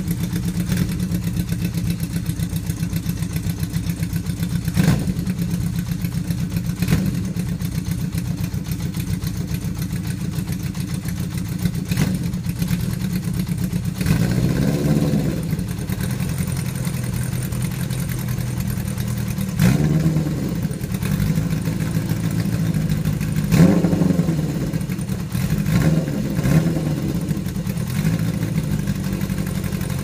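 Honda inline-four motorcycle engine idling steadily, then given short throttle blips, the revs rising and falling quickly: once about halfway through and several times near the end.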